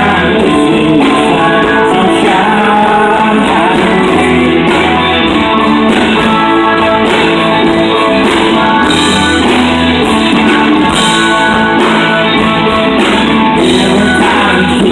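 Live country band playing an amplified song at a sound check, in a stretch without lyrics where guitar carries the music.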